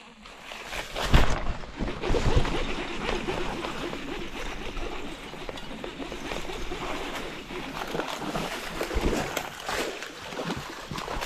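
Water splashing and sloshing in a shallow creek, with a few loud knocks about one and two seconds in.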